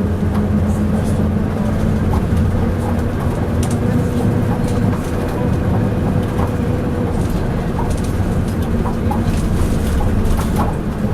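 Leyland Atlantean double-decker bus's six-cylinder diesel engine running steadily under way, with frequent loud clanks and rattles from the ECW body and its fittings.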